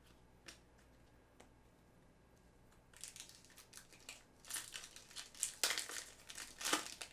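A foil trading-card pack wrapper crinkling as it is torn open by hand. The crackling starts about three seconds in and comes in irregular bursts, loudest near the end.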